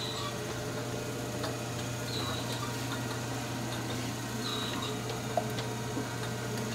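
Steady low hum of a slowly turning cutaway Packard 4M-2500 V12 marine engine, driven by an electric motor, with faint light ticks from its valve gear and a short high squeak recurring about every two seconds.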